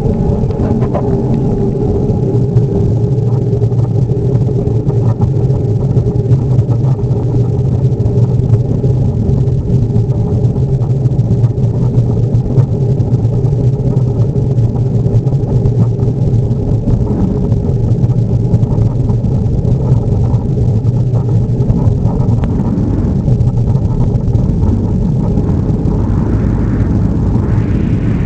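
Boeing 737-800 heard from inside the cabin, its CFM56 jet engines running steadily with a loud low rumble and steady low hum. A higher hiss rises in the last few seconds.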